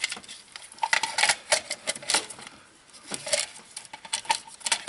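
Hard plastic clicks and knocks as a new distributor cap with its spark plug wires is handled and seated onto a Honda Civic's distributor: irregular taps, a few a second, quieter for a moment midway.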